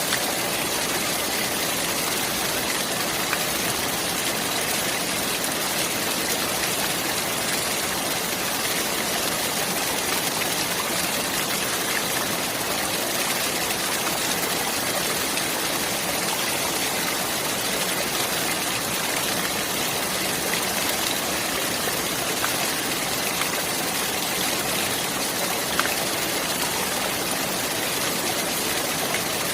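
Running water rushing steadily, an even, unbroken hiss of clear fresh water flowing over rocks.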